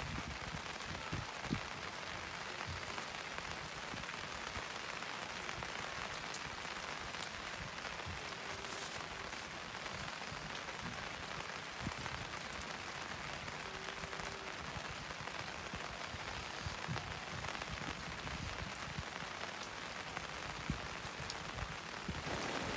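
Steady rain pattering, with scattered louder drops.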